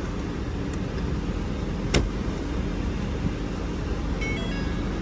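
2011 Ford Focus idling with the AC running: a steady low rumble. One sharp click about two seconds in, and a few brief faint high tones near the end.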